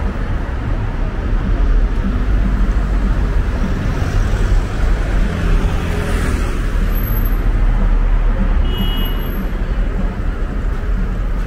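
Street traffic: cars passing over a constant low rumble, with one vehicle swelling past about halfway through.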